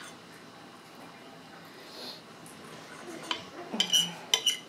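A metal fork clinking and scraping against a dinner plate: a few sharp clinks with a short ringing tone, bunched together near the end.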